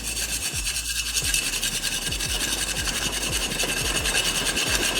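Grade B compressed sawdust charcoal sticks knocked and scraped together in many quick strokes, giving a muted, dull sound instead of a bright metallic ring: the sign of a less dense, lower-carbon briquette.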